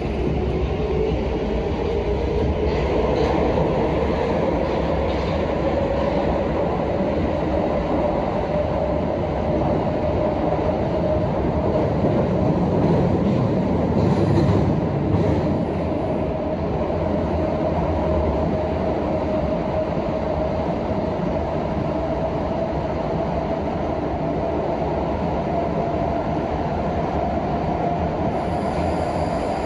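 Prague Metro M1 train running between stations: the traction motor whine rises in pitch over the first several seconds as the train accelerates, then holds steady at running speed. Under it runs a constant rumble of wheels on rail, which swells briefly around halfway.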